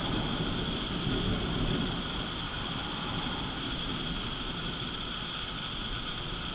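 Rolling thunder rumbling low for about the first two seconds, then dying away into a steady hiss.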